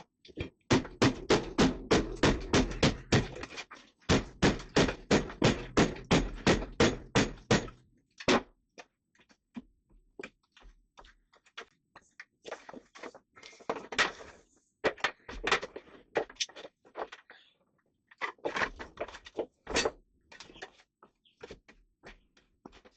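Rapid hammer blows on wood, about four a second, in two runs through the first eight seconds. Scattered knocks and clattering of wood follow as rotten plywood seating is broken out.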